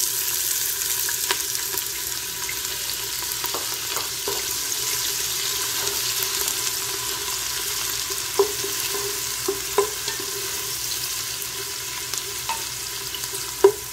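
Sliced onions sizzling steadily in hot oil as they are fried down toward dark brown, stirred with a wooden spatula. The spatula knocks against the pot a few times in the second half.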